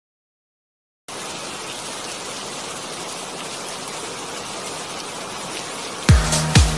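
Logo intro soundtrack: silence for about a second, then a steady hiss, and near the end an electronic dance beat with a kick drum comes in.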